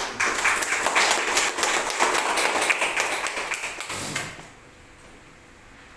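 A small group applauding, many hands clapping rapidly, for about four seconds before it dies away, greeting the formal opening of the course.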